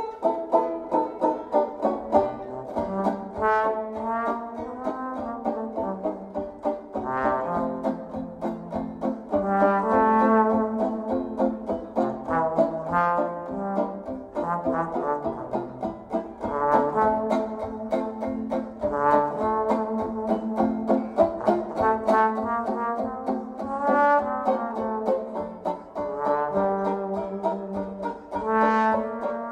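Jazz tune led by a trombone melody over banjo accompaniment, a music recording played back through a Klipsch RSB-11 soundbar.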